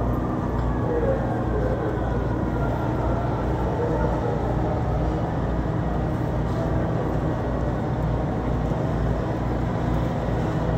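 Fire trucks' engines running steadily, a loud, even, deep drone, with faint voices from the onlookers under it.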